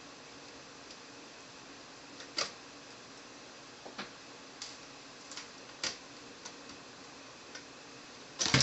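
Scattered faint clicks and ticks of a small screwdriver working out the screws that hold the LCD screen in an HP Pavilion G61 laptop's lid, with a louder burst of clicks near the end.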